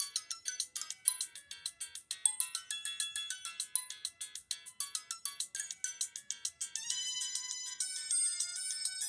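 Samsung SCH-U410 cell phone playing its ringtones through its small speaker, thin and with no low end. A fast melody of short staccato notes gives way, about seven seconds in, to a different melody with longer held notes.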